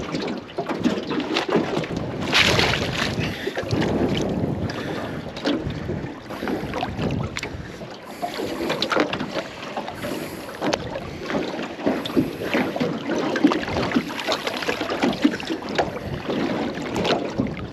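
Irregular knocks, bumps and scrapes of a fish being handled on a small boat, over a steady noisy background of water and air around the boat.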